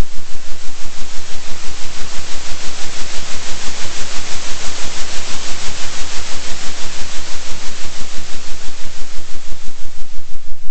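Loud synthetic noise, a hiss spread from low to high, pulsing evenly in loudness about three times a second over a steady low hum.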